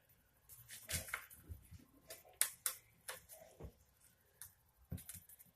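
A sheet of paper being folded and creased by hand against a hard countertop: a run of short, irregular crinkles and taps.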